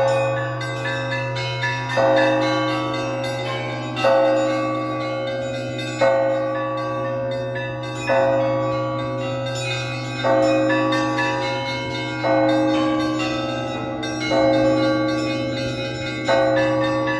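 Orthodox church bells rung by a bell ringer in the Easter peal: a heavy bell struck about every two seconds, with smaller bells ringing quick patterns between the strokes and a low ringing hanging on underneath.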